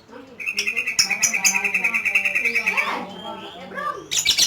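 Lovebird ngekek: a long, fast, even chattering trill held for about two and a half seconds, then a few shorter chirps and a sharp, loud squeak near the end.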